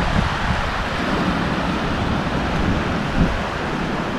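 Small waves washing and breaking on a sandy shore in a steady wash of surf, with wind buffeting the microphone in an uneven low rumble.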